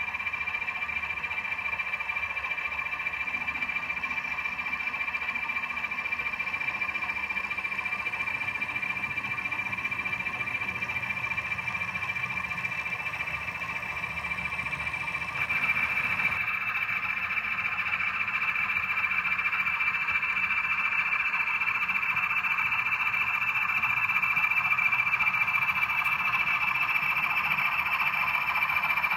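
Model diesel locomotives running: a steady droning hum with a constant high whine. It grows louder and fuller about halfway through as a model Class 20 draws near hauling a low-loader wagon.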